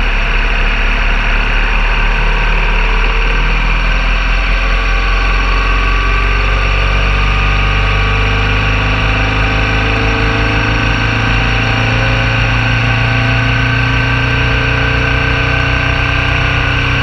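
BMW R1200 GS Adventure's flat-twin engine running steadily under way, its pitch drifting slowly as the revs change.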